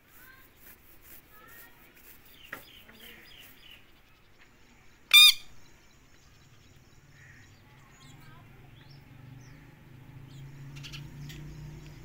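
Indian ringneck parrot gives one loud, short squawk about five seconds in, with a smaller sharp call a couple of seconds earlier and faint bird chirps around it.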